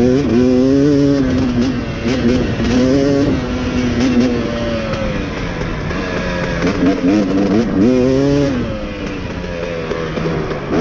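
Dirt bike engine running under way, its pitch climbing and dropping several times as the rider accelerates and shifts.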